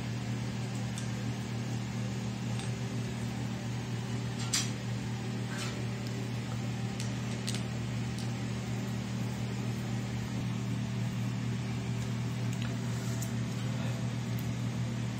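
A steady low electric hum, like a fan motor, with a few faint clicks of a hand screwdriver driving a screw through a plastic bracket into a tiled wall.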